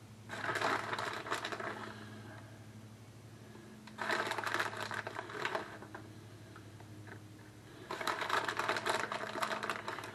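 Crinkly rustling in three bursts of a second or two each, as shredded cheddar cheese is handled and sprinkled onto smashed potatoes on a parchment-lined baking sheet.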